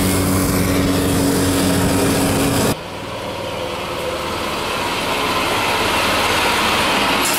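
Golf cart engine running at a steady pitch with heavy wind-and-road hiss. About three seconds in the sound drops off abruptly, then a golf cart's engine grows steadily louder as it drives up close.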